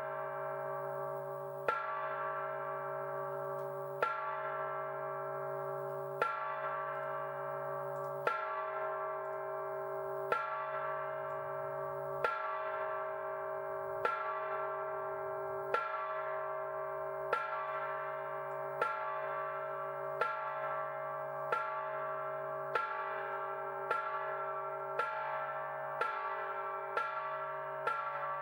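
Repeated bell-like metallic strikes, each ringing on with many overlapping tones. They come about every two seconds at first and speed up to nearly one a second by the end. A steady low hum runs underneath.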